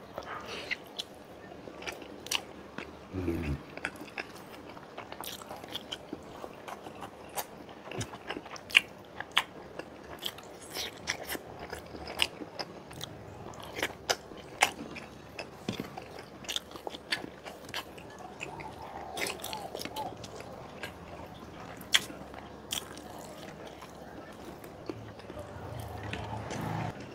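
Close-up eating sounds of a man chewing milkfish and rice: wet chewing with many sharp mouth clicks and lip smacks. There is a short falling vocal hum about three seconds in.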